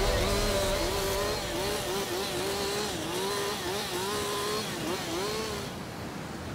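Two-stroke chainsaw engine running at high revs, its pitch dipping and rising again over and over, stopping near the end.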